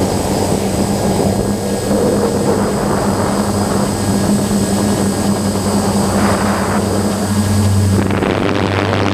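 DJI F550 hexacopter's six electric motors and propellers humming steadily in flight, heard up close from the camera mounted on the drone, with a steady low hum under a high, thin whine. The higher hiss softens near the end.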